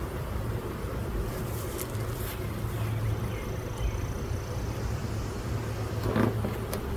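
Honeybees buzzing steadily around an opened hive as a low, even hum, with a few light clicks near 2 seconds in and again near the end.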